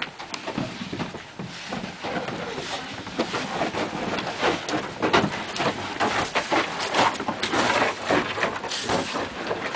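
Jumbled shuffling, bumps and clatter of a group of children moving about together in a cramped stone cellar, with many short knocks at uneven intervals.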